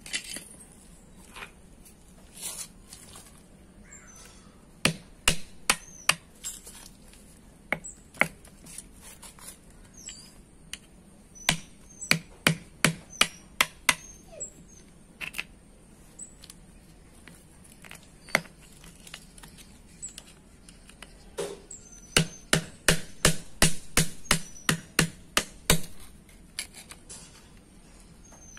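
Hammer striking a steel chisel held against a drum brake shoe. The sharp metallic blows come singly and in short runs, then in a fast run of about three blows a second near the end.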